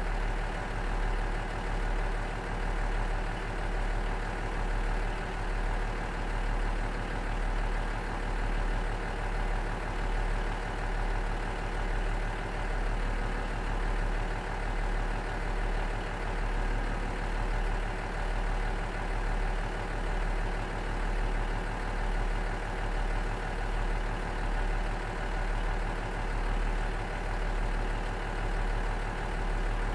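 Cummins DMF14HZ diesel engine of a JR KiHa 47 railcar idling steadily, with a slow, even rise and fall in loudness.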